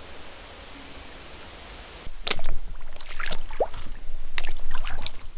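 Rubber boots wading through a shallow creek, with irregular splashing, sloshing steps in the water starting about two seconds in after a quiet start.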